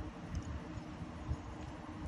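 Wind buffeting the microphone: an uneven low rumble in gusts, with a few faint ticks.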